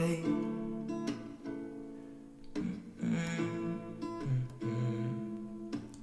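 Background music: an acoustic guitar strumming chords, with no singing.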